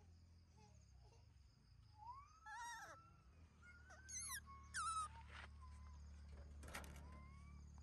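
Baby monkey giving several short, high, squeaky calls that rise and fall, the first and longest about two seconds in and the loudest a couple of seconds later.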